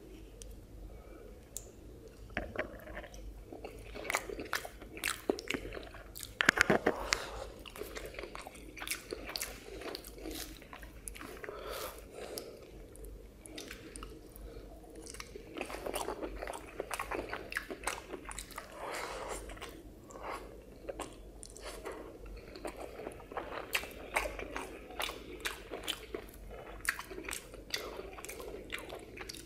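Close-miked eating by hand: chewing and mouth smacks on a mouthful of rice and cauliflower curry, a busy run of short wet clicks with a louder burst about six and a half seconds in.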